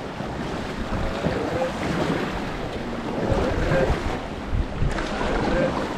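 Swift mountain-river current rushing and splashing around an inflatable raft, with wind buffeting the action-camera microphone in a steady low rumble.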